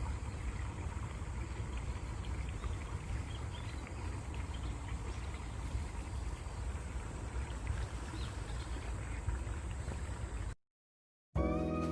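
Flowing stream water running steadily, with occasional faint bird chirps. It cuts off suddenly about ten and a half seconds in, and after a brief silence piano music begins near the end.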